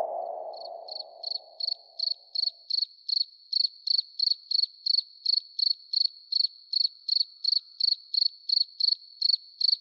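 Cricket chirping sound effect, a steady high chirp repeating about three times a second. At the start a lower tone fades out over the first two to three seconds.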